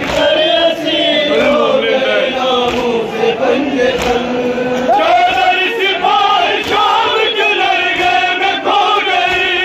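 A group of men chanting a nauha, a sung Urdu lament of Shia mourning, without instruments: one melodic line carried by many voices. The chant moves to a new, higher phrase about five seconds in.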